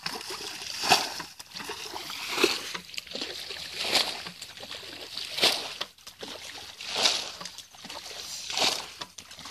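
Muddy water being bailed from a shallow channel with a bucket, splashing out in regular scoops about every second and a half, six times.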